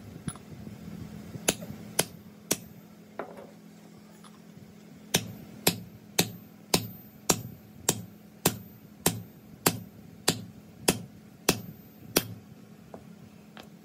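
Light hammer taps on steel, seating a helical gear onto a gearbox input shaft. A few scattered taps come first, then a steady run of about thirteen, roughly one every 0.6 seconds.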